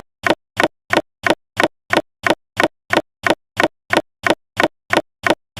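A fast, even ticking of short, sharp clicks, about three a second.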